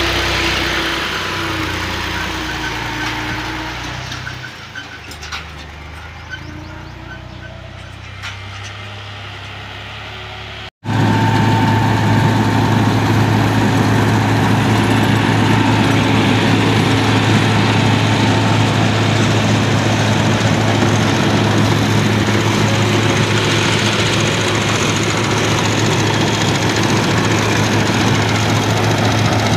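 A tractor engine running and fading over the first ten seconds. After an abrupt cut about eleven seconds in, a Massey Ferguson 385 tractor drives a PTO-powered wheat straw reaper, a loud, steady mechanical drone as it chops stubble and blows it into a trailer.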